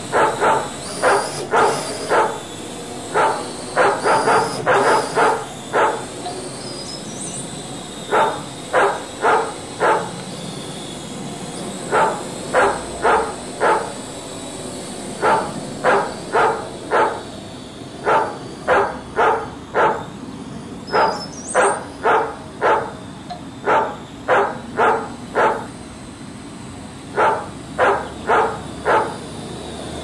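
Dubbed-in dog barking in quick runs of three to five barks, about three a second, with short pauses between runs. A faint steady high whine runs underneath.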